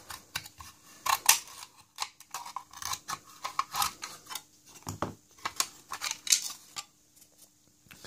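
Irregular metallic clicks, scrapes and clinks of a small tool prising the cover plate off a steel rim lock case, dying away near the end.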